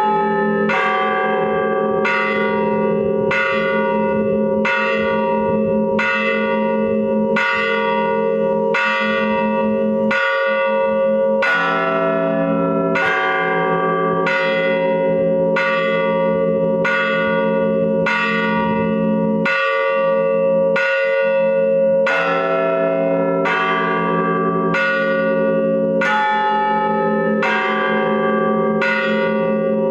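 Church bells ringing the traditional Solsona Cathedral toll for the death of a Pope, heard close up inside the belfry: evenly spaced strokes, about three every two seconds, each ringing on over the steady hum of the larger bells, with the stroke pitch changing now and then as different bells sound.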